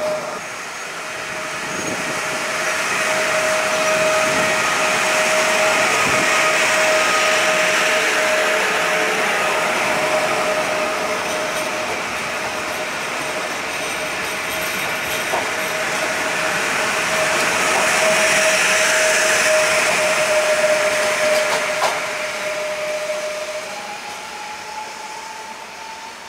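Koleje Śląskie electric multiple unit running past on the line, a steady rumble of wheels and running gear with a steady hum over it. The sound swells twice, then fades near the end.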